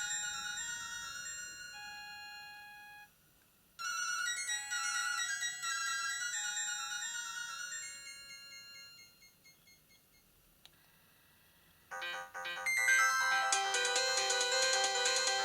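Nokia 5310 (2020) playing ringtone previews through its small loudspeaker. A bright, simple melody plays, breaks off about three seconds in, starts over and fades away. After a few seconds of near silence, a different, fuller and louder ringtone begins about twelve seconds in.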